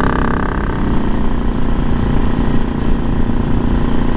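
Yamaha XVS650 V-Star's air-cooled V-twin engine running while the bike cruises on the road, with wind rumble on the helmet-mounted microphone. The engine's note softens just under a second in, then holds steady.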